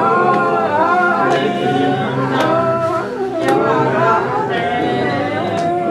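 A group singing a worship song in long held notes, with a sharp beat about once a second.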